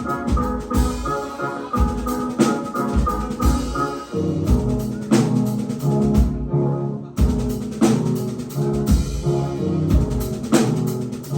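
Live band playing an instrumental stretch between vocal lines: a steady drum-kit beat over bass and sampler keyboards. A held high sampled tone sounds over the first few seconds, then drops away.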